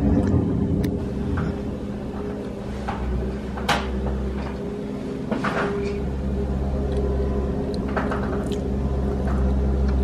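Skid-steer loader's engine running steadily as the machine clears deep snow, with a couple of short knocks about four and five and a half seconds in.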